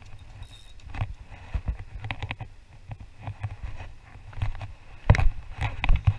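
Wind rumbling on the body-worn camera's microphone, with irregular rustles, clicks and knocks from clothing and handled fishing gear. The loudest bumps come about five seconds in.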